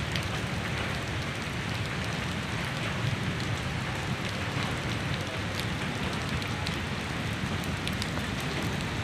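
Heavy rain falling on a flooded street, a steady hiss of rain hitting standing water with scattered small drop splashes.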